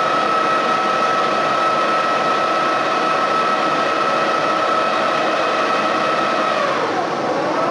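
Metal lathe running under power during a single-point threading pass, with a steady whine from the machine. About seven seconds in, the whine drops sharply in pitch and then climbs back up.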